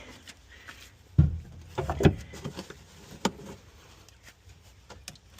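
A heavy thump about a second in and another just after two seconds, then lighter clicks and knocks: a replacement AGM car battery being set down and seated in its tray.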